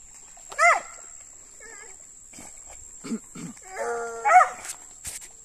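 Dogs barking in high yelping barks: one about half a second in, then a short run of barks and yelps from about three to four and a half seconds in, the last the loudest.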